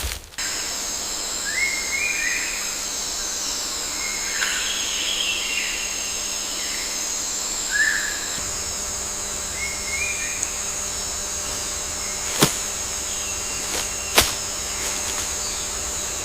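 Outdoor nature ambience: a steady high-pitched drone with a few short bird chirps through the first ten seconds, then two sharp clicks a couple of seconds apart near the end.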